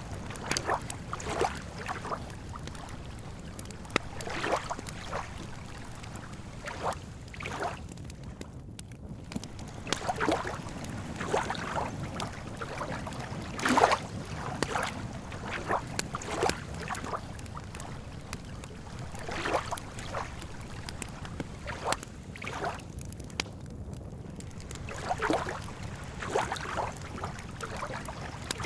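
Small waves lapping and sloshing at a lakeshore, an irregular splash every second or so, over a steady low rumble.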